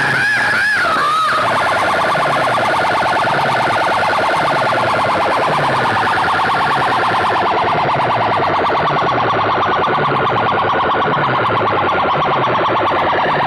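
Electronic siren sound played loud through a truck-mounted stack of dozens of horn loudspeakers. About a second in, the wavering siren tone changes to a rapid pulsing, with a low sweep repeating underneath.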